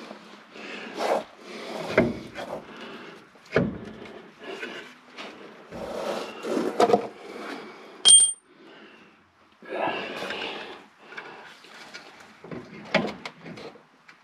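Hand tools clanking, scraping and rubbing against a truck's front disc brake caliper and its mounting hardware as the caliper is fitted back on, in irregular knocks with a few sharper clanks. About eight seconds in, a short high ping rings out.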